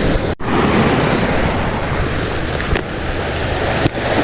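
Sea surf washing with wind blowing across the microphone: a steady rushing noise, broken by a very brief dropout just after the start.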